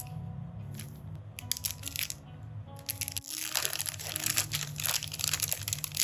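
Rapid crackling and crunching over soft background music, growing denser and louder about halfway through.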